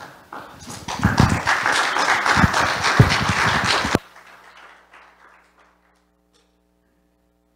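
Congregation applauding for about three seconds. The clapping cuts off suddenly about four seconds in, leaving a faint steady hum.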